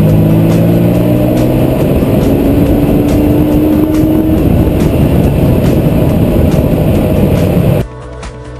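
Lamborghini Diablo SE30's V12 engine accelerating, loud, its note rising in pitch over the first four seconds and then running hard and steady. Near the end it cuts off abruptly to electronic music.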